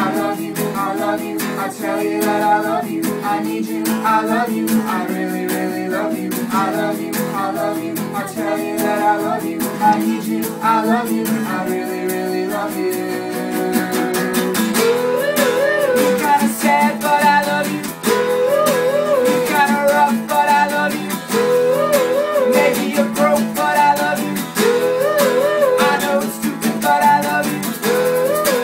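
Live acoustic band performance: two acoustic guitars strummed with several voices singing. From about halfway through, a short wordless melody repeats every few seconds over the guitars.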